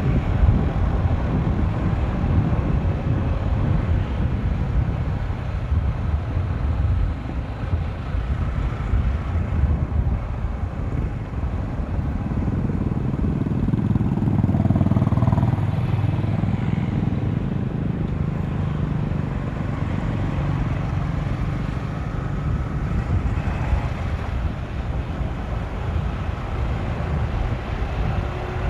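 Motorcycle being ridden, its engine running under a steady rush of wind and road noise, swelling slightly around the middle.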